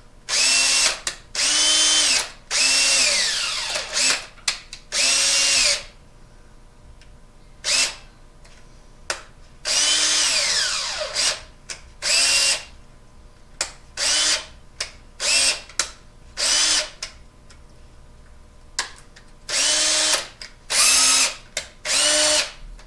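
Makita cordless drill motor run in about fifteen short bursts on the trigger, spinning up and stopping, some trailing off in a falling whine as it coasts down. This is a test run after reassembly into a new housing, and the drill is working again.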